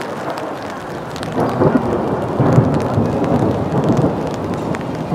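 Steady rain with a low rolling rumble of thunder that builds about a second and a half in and eases toward the end, with faint drop ticks over it.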